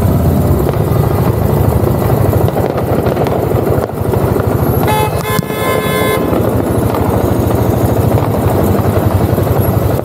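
Motorcycle engine running with a deep rumble as it rides slowly, and a vehicle horn honking once for about a second and a half just after the middle.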